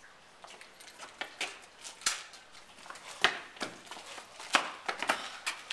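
Footsteps and scuffing on a concrete floor: a string of irregular light knocks and scrapes, a few a second, with a few sharper knocks.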